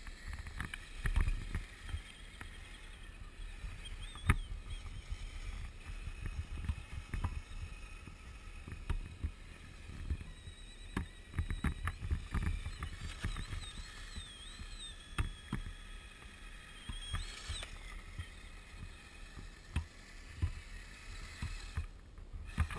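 Wind buffeting the microphone in low gusts, with scattered sharp knocks. Through the middle, the faint whine of the RC trucks' electric motors rises and falls as they drive on the ice.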